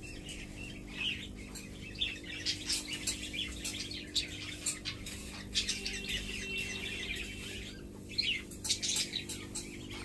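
Alexandrine parakeet giving many short, scattered chirps and squeaks, over a steady low hum.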